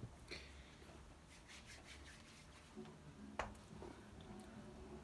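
Near silence: low room hum with faint rubbing and scratching, and a single soft click about three and a half seconds in.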